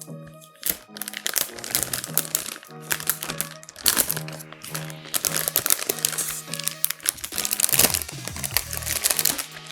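Packaging crinkling and crackling in dense irregular bursts as a graphics card is unwrapped by hand, over background music with a steady repeating beat.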